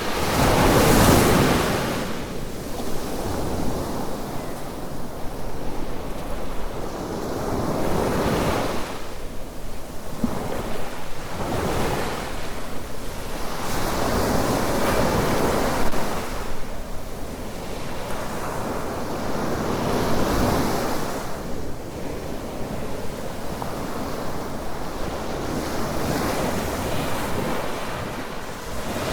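Small waves breaking and washing up the beach, a swell of surf every few seconds, the loudest about a second in, with some wind.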